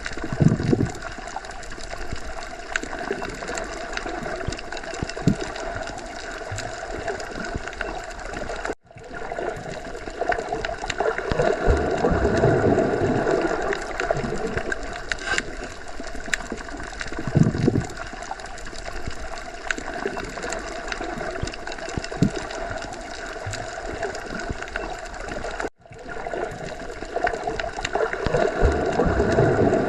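Underwater ambience: a steady gurgling, rushing water noise with slow low swells. It cuts out for a split second twice, about 9 s and 26 s in.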